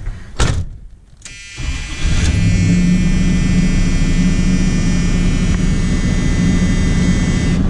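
A thump about half a second in, then a car engine starting and settling about two seconds in into a loud steady run, heard from inside the cabin.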